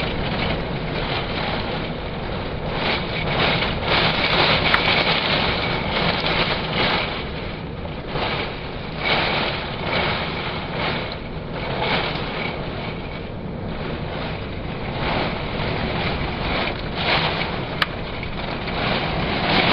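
Violent storm winds blowing in strong gusts that rise and fall every second or two, buffeting the microphone. A single sharp click comes near the end.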